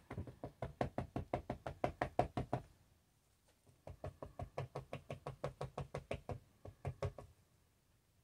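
Rapid tapping of resin-filled silicone snowflake molds against the craft mat and table, about seven or eight taps a second, in two runs of a couple of seconds each with a short pause between and a few last taps near the end. The tapping shakes air bubbles up out of the poured epoxy resin.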